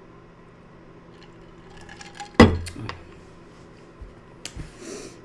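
A drink tumbler with a straw set down on a desk, making one sharp knock about halfway through, then a few lighter clicks.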